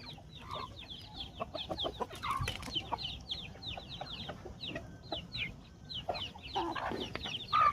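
A flock of chickens chirping and clucking while eating mash, with many short high chirps that fall in pitch, several a second, and a few lower clucks.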